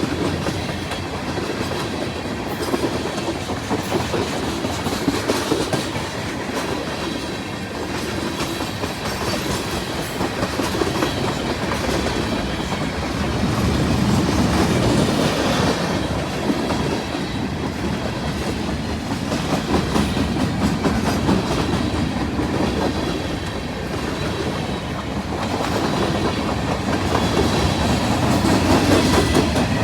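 Freight train rolling past at close range: a steady rumble of wheels with continuous clickety-clack over the rail joints.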